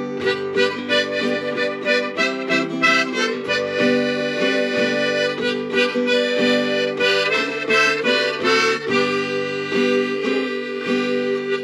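Harmonica in a neck holder played together with a strummed acoustic guitar, one player performing a tune.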